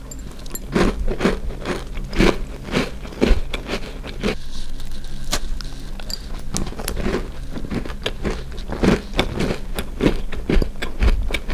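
Crisp sesame cookie being bitten and chewed close to the microphone: a steady run of crunches, a few each second. The cookie is crispy from being baked in an air fryer.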